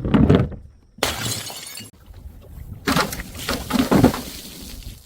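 Glass bottles being smashed: a loud crash at the start, a spell of hissing, scattering noise about a second in, then a run of knocks and crunching breaks around three to four seconds in.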